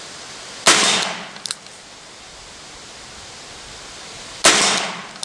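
Two shots from a 1940 Colt Police Positive Target .22 Long Rifle revolver, a little under four seconds apart, each dying away over about half a second. A faint short tap follows each shot about three-quarters of a second later.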